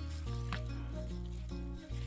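Background music: held bass and chord tones that change every second or so, with a few light clicks over them.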